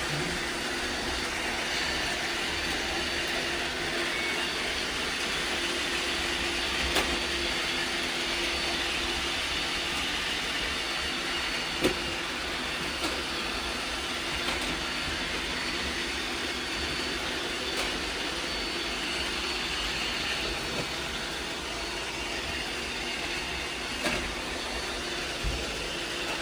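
Several robot vacuums running at once, a steady whirring hum, with a few brief sharp knocks here and there.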